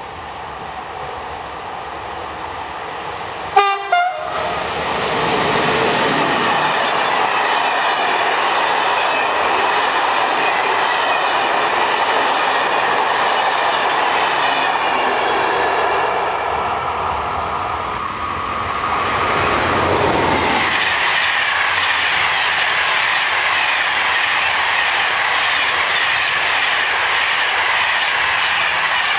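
SNCF electric locomotive sounding two short horn blasts as it approaches. Then passenger trains passing close at speed: a loud steady rush of wheels and carriages with rail clatter, dipping briefly past the middle before another train goes by.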